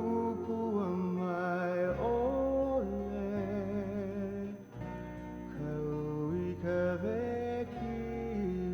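Music: plucked guitar with a melody line that slides between notes, over changing bass notes.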